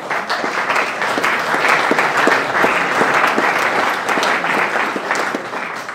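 Audience applauding: many hands clapping in a dense, steady patter that dies away near the end.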